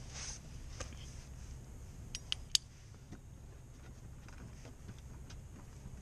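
Faint clicks and clinks of hand work on a car's underbody fasteners: three sharp clicks close together about two to two and a half seconds in, over a low steady hum.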